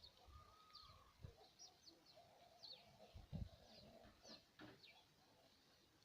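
Faint, short, high chirps from small songbirds, tits and sparrows, at a garden feeder, scattered irregularly, each sweeping quickly downward. There are a few soft low thumps, the loudest about three and a half seconds in.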